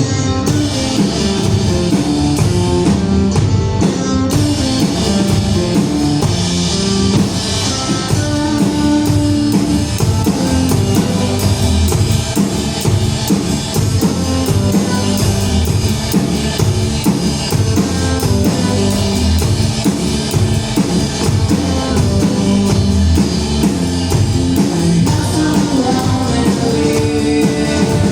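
A rock band playing live: a drum kit keeping a steady beat under electric guitars and bass, an instrumental stretch with no singing.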